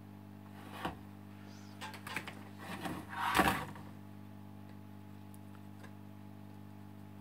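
Handling noise as a laptop motherboard is moved on a workbench: a light click about a second in, a few small knocks, then a louder, longer rubbing noise about three and a half seconds in. A steady electrical hum runs underneath.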